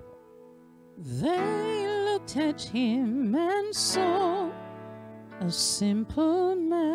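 A woman singing into a handheld microphone with a wide vibrato, over sustained electric piano accompaniment. Her voice comes in about a second in, after a brief lull where only the keyboard sounds faintly.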